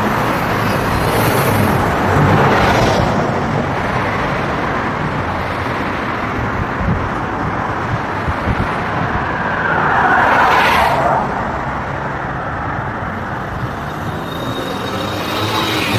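Road traffic passing on a city street, a steady wash of vehicle noise with louder vehicles going by about two seconds in and again around ten seconds in.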